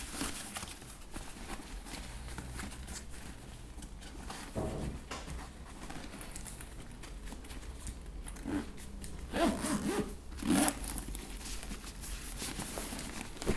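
Zipper of a K&F Concept camera backpack being pulled closed around the bag, a rasping zip with rustling and handling of the fabric. It comes in uneven spurts, louder between about 8 and 11 seconds in.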